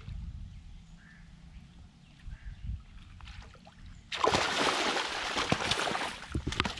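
A hooked pangas catfish thrashing at the water's surface. A loud burst of splashing starts about four seconds in as it is scooped into a landing net, lasts a couple of seconds, then tails off.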